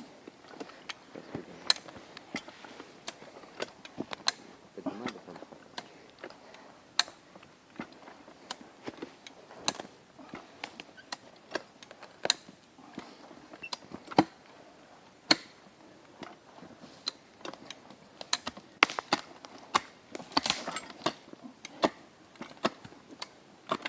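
Irregular sharp clicks and knocks, roughly one to three a second, a few of them much louder than the rest.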